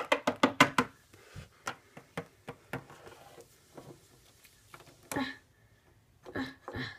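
Plastic Littlest Pet Shop toy figurines tapped and hopped on a wooden tabletop: a quick run of about eight sharp taps in the first second, then scattered softer taps. A few short pitched sounds follow about five and six and a half seconds in.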